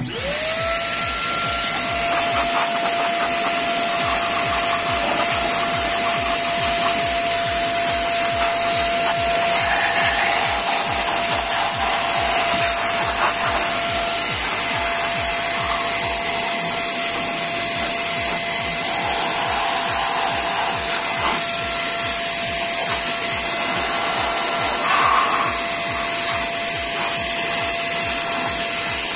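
Proman 1200-watt vacuum cleaner used as a blower, its motor whining up to speed within the first second and then running steadily, with a strong rush of air from the nozzle aimed into an open power amplifier.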